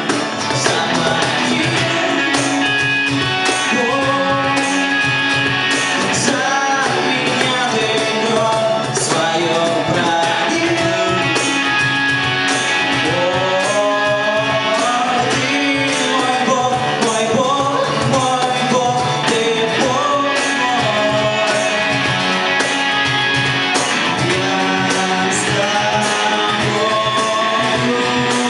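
Live band playing a song: strummed acoustic guitar, electric guitar and a cajon beat, with a man singing the lead vocal.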